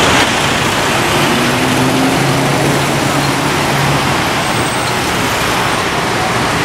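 Busy city-street traffic: cars and taxis driving past in a steady wash of road noise, with a low hum standing out for a few seconds near the middle.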